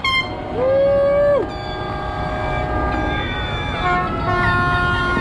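Many boat horns blowing at once, overlapping steady tones of different pitches, with one loud horn blast starting about half a second in and lasting nearly a second.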